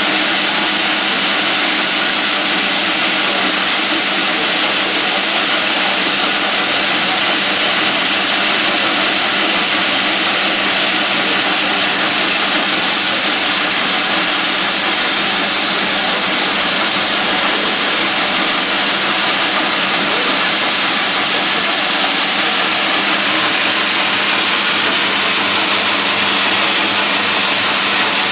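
Electric peanut peeling machine running steadily, its motor driving the peeling drum by V-belts: a dense, even rush with a steady hum underneath.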